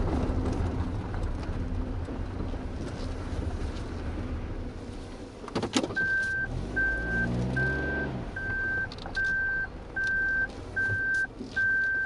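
Car running with a low steady rumble, its engine note swelling briefly past halfway. From about halfway, a high electronic beep repeats eight times, evenly spaced, like a vehicle's warning chime.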